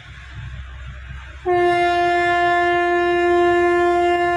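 Horn of an Indian Railways WAG-7 electric freight locomotive sounding one long, steady blast that starts suddenly about a second and a half in, over the low rumble of the goods train running past.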